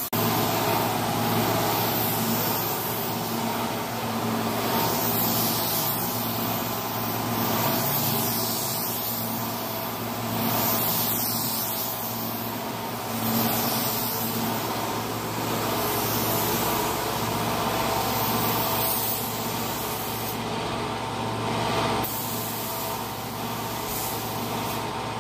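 Compressed-air paint spray gun hissing in long passes as paint goes onto the car body, the hiss easing off briefly a few seconds before the end. A steady hum runs underneath.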